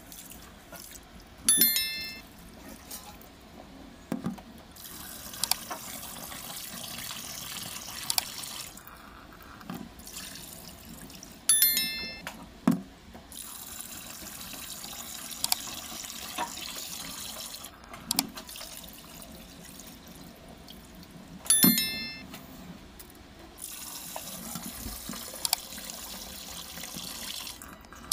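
Tap water pouring into a steel bowl of rice in a sink and swished by hand as the rice is rinsed, the flow coming and going in stretches. A short, loud tonal sound comes three times, about ten seconds apart.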